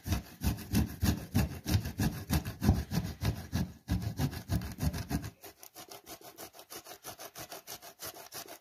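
Boiled beef heart being grated on a metal hand grater: quick, rhythmic rasping strokes, several a second, which grow softer about five seconds in.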